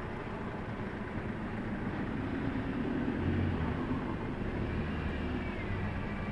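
Street traffic: a steady low motor-vehicle engine rumble that swells in the middle and then eases off.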